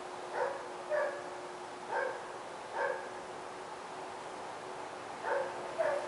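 A dog barking: four short barks spread over the first three seconds, a pause, then two more near the end, over a steady hiss and a faint steady hum.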